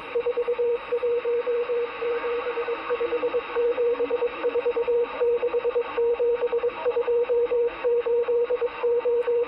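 Morse code (CW) received over a CB radio: one steady tone keyed on and off in rapid dots and dashes, sent fast, over steady radio hiss.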